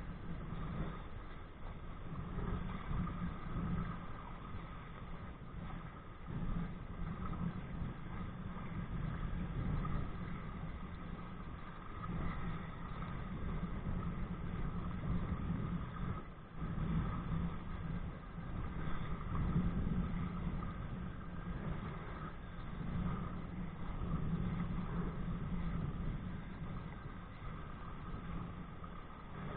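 Low rumbling wind and water noise on a body-worn camera's microphone while kite-kayaking, swelling and easing every few seconds.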